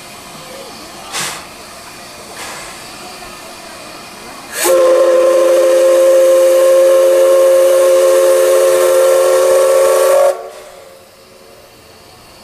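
Steam whistle of the Oigawa Railway's James the Red Engine (C56-class tank locomotive C56 44) blowing one long steady chord of several notes for about five and a half seconds, then cutting off. Before it come a few short hisses of steam.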